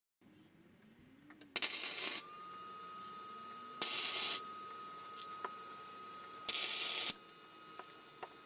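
Three short bursts of hissing, each just over half a second long and about two and a half seconds apart, over a faint steady high tone.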